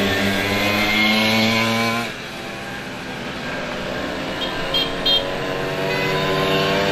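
Simson 50cc single-cylinder two-stroke moped engines running as a group rides along. The engine note drops about two seconds in, then rises steadily as a moped accelerates, with two short high beeps near the middle.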